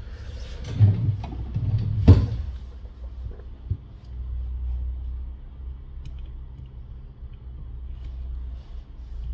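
Handling noise from hands and tweezers on a glass phone back cover on a work mat: a few knocks and rubs in the first two seconds, the sharpest about two seconds in, then a low rumble and a few faint ticks as the tweezers work the edge of the double-sided tape.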